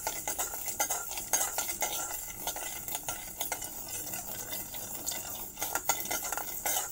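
Metal spoon stirring and scraping black mustard, ajwain and fenugreek seeds as they dry-roast in a kadhai, with the seeds rattling across the pan. The scrapes and clicks come quickly and unevenly.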